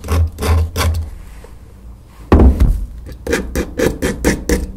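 Craft-knife blade scraping the white PVA paint off the edges of an MDF box in short, quick rasping strokes, with a pause about a second in. A single thump a little before halfway, then the scraping resumes at about three to four strokes a second.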